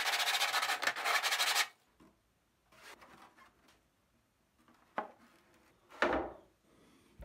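Sandpaper rubbing along the cut edge of a 3D-printed PLA fuselage nose piece, stopping after about a second and a half. Then two light knocks as the hollow plastic part is handled.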